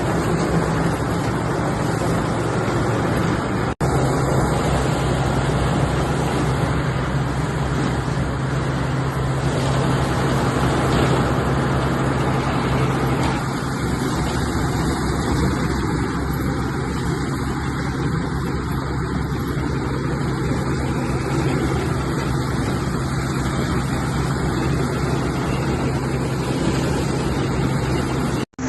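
Tractor engine running steadily under load, pulling a manure spreader loaded with straw bales.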